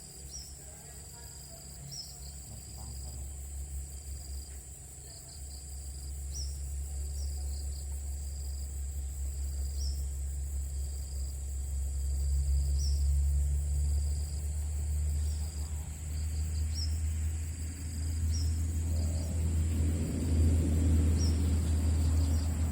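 Steady high drone of insects such as crickets, with a short chirp repeating about every second or so. A low rumble underneath grows louder toward the end.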